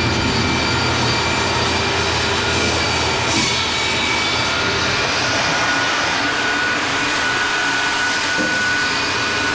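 A fan or blower running steadily: an even, loud whoosh with a thin whine held through it.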